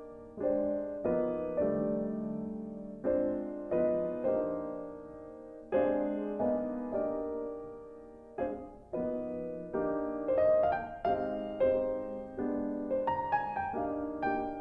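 Background music: gentle piano, single notes and chords struck one after another and left to fade, with a quicker run of notes near the end.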